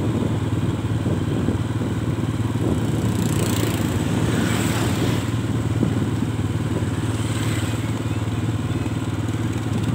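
Motorbike traffic heard from a rider's position: a steady low engine hum with wind and road noise, and other scooters passing close about four and seven seconds in.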